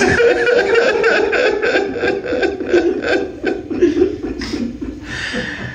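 Weeping aloud: quick, broken, sobbing voice pulses that die down toward the end.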